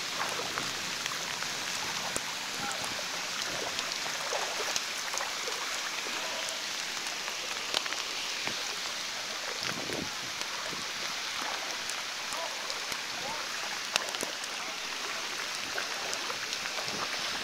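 Heavy rain pouring steadily in a thunderstorm, an even hiss with a few sharp ticks scattered through it.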